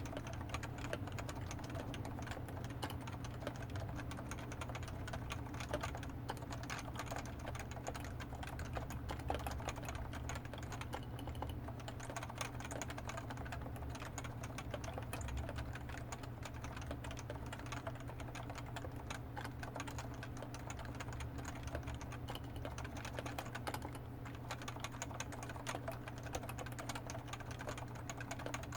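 Continuous typing on a Topre Realforce 87u keyboard with 45 g electrostatic capacitive switches and PBT keycaps: a dense, irregular patter of key presses at an even pace, over a steady low hum.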